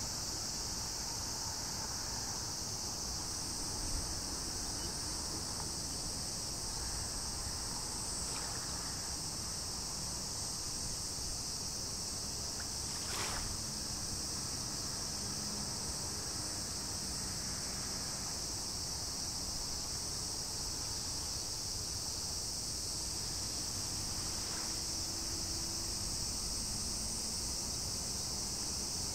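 A steady, unbroken high-pitched chorus of summer insects over a faint low rumble, with one brief click about halfway through.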